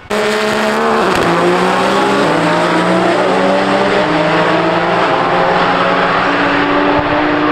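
Race car engine running hard at high revs. Its pitch drops in steps about one and two seconds in, then climbs slowly.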